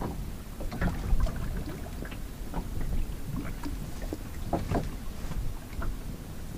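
Wind buffeting the microphone over water sloshing against a small boat's hull, with a few short sharp knocks scattered through.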